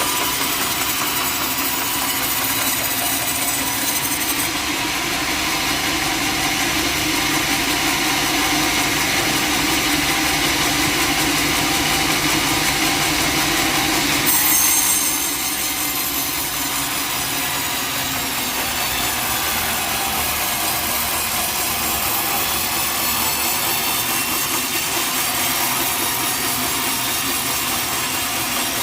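Sawmill saw running steadily through teak timber, with a continuous cutting noise; the sound shifts about halfway through.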